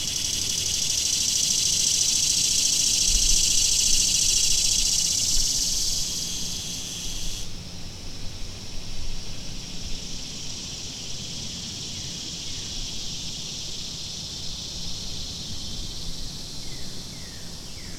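Steady high-pitched chorus of insects, like crickets or cicadas trilling; it drops sharply in level about seven and a half seconds in and carries on more faintly.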